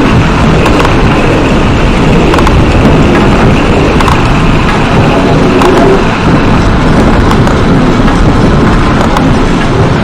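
Layered sound effects in an experimental electronic composition: a loud, dense, steady noise with most of its weight in the low end and a few faint clicks scattered through it.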